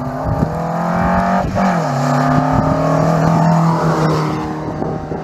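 Classic rally car engine running hard as the car comes up the road and passes close by. The engine note drops in pitch about a second and a half in, then holds steady and is loudest around three to four seconds in.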